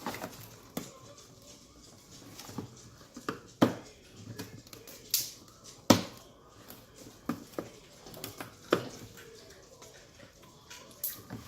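Irregular sharp plastic clicks and taps as a headlight lens is pried away from its housing and its tabs are worked loose, three of them louder than the rest.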